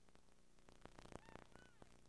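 Near silence: faint tape hiss, with a few brief, faint high chirps about a second in.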